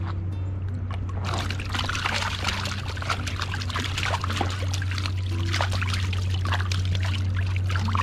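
River water splashing and trickling, starting suddenly about a second in and going on irregularly, over a steady low rumble.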